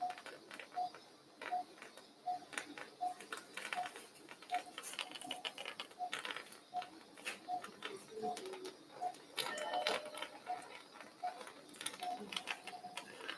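Anaesthesia monitor beeping, a short tone about every three-quarters of a second (around 80 a minute), in step with the anaesthetised dog's pulse. Faint, irregular clicks and taps are heard alongside it.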